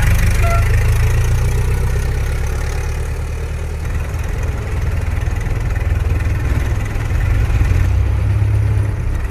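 Old car engine running at idle with a steady low rumble. It eases off slightly in the middle and grows louder again near the end.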